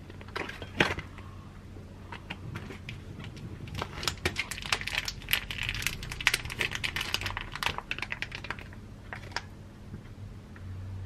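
Thin plastic food pouch crinkling and crackling as it is handled and squeezed, with scattered sharp clicks at first and a dense run of crackles in the middle. The pouch holds frozen-solid sundae being pushed out onto a ceramic plate.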